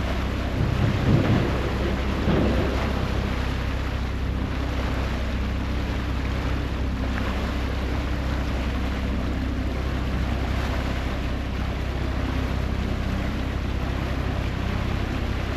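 Ferry engine running steadily with a low drone, over the rushing of the churned propeller wash and wind on the microphone, with a few louder low rumbles in the first few seconds.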